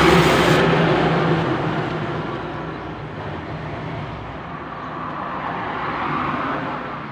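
A motor vehicle passing on the road outside, its engine and road noise loudest at the start and fading away over the first few seconds, with a smaller swell of traffic noise near the end.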